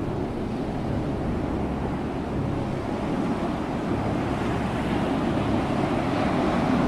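Ocean surf: waves washing in a continuous rush, swelling slightly louder near the end.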